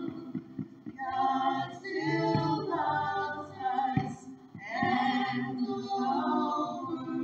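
Women singing a worship song, coming in about a second in over a soft, steady low accompaniment. Occasional dull thumps cut in, the clearest about midway.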